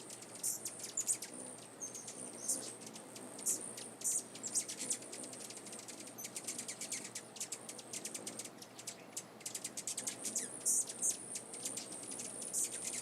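Small birds chirping: many short, sharp, high-pitched calls in quick succession, over a steady high-pitched buzz.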